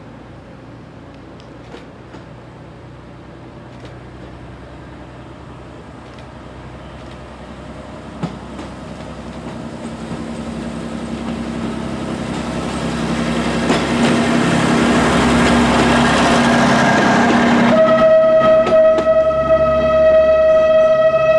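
A diesel railcar approaching and passing close by, its engine hum and rolling noise growing steadily louder over about ten seconds. About eighteen seconds in, the rolling noise gives way to a long, steady horn blast that is still sounding at the end.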